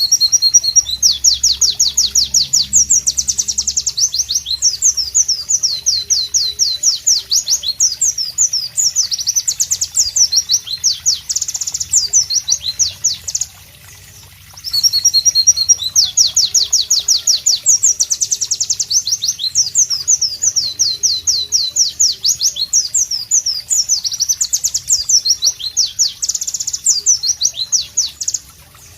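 White-eye (pleci) singing in two long bouts of rapid, high chirps and trills, with a pause of about a second halfway through; the song stops just before the end.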